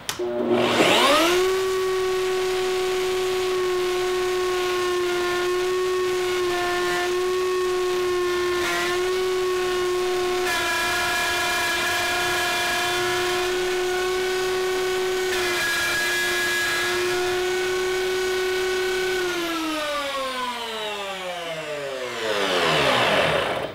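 Table-mounted router starting up and spinning at a steady high whine while its half-inch plunge bit cuts a pocket into a wooden speargun stock in a few shallow plunges. It is switched off near the end and winds down with a falling pitch.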